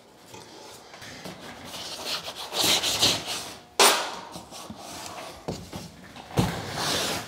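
Stiff brown pressed paper rustling and rubbing as it is handled and pressed against a bare sheet-metal car body, with a loud sharp snap about four seconds in and a duller thump near the end.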